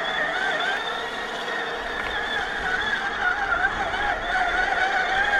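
Whine of a scale RC crawler's brushed 540 electric motor and gearbox while it drives, its pitch wavering up and down with the throttle. A low rumble joins about two seconds in.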